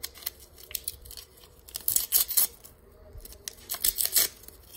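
Crinkly foil wrapper of a taso pack being torn and pulled open by hand, crackling sharply in two bursts, about two seconds in and again near the end.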